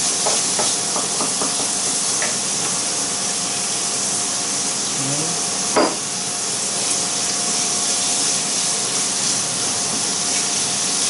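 Chopped onions sizzling in oil in a stainless steel frying pan, a steady frying hiss as they brown with a little sugar. A single sharp knock comes about six seconds in.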